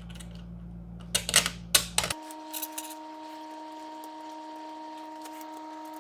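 A quick cluster of sharp clicks and knocks from small extruder parts and fasteners being handled, starting about a second in, with a few lighter clicks shortly after. The background hum then changes abruptly to a steady, higher hum.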